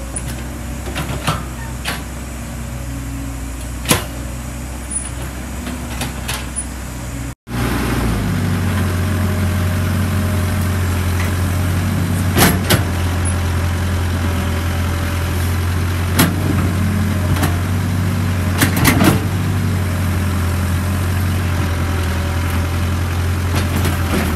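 Diesel engine of a CAT E120B hydraulic excavator running steadily while it digs and loads soil, with occasional sharp knocks. About seven seconds in the engine becomes much louder and deeper, heard close up.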